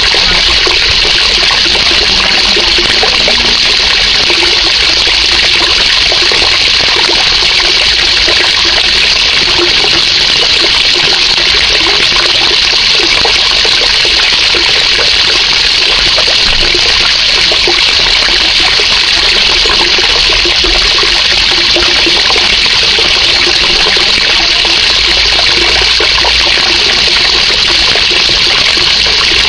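A jet of water from a pipe splashing steadily and loudly into the surface of a pond.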